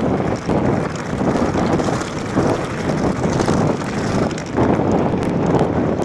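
Wind rushing loudly over the microphone of a mountain bike descending a gravel track at about 28 mph, with the tyres rumbling over loose stones and many small ticks and rattles from the gravel.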